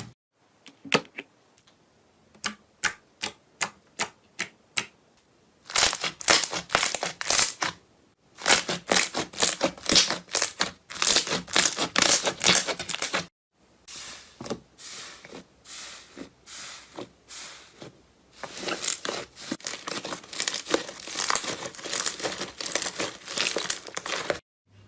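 Slime being handled, poked and squeezed. It starts with a run of separate sticky clicks and pops for the first few seconds, then turns to dense crackling and crunching in several stretches as slime is pressed and worked.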